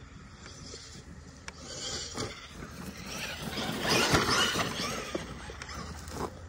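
Kyosho Mad Wagon 1/10 RC monster truck with a Castle 3200kv brushless motor on 3S running across dry grass and dirt, its motor and gear whine mixed with tyre and chassis noise. It swells to its loudest about four seconds in, then fades.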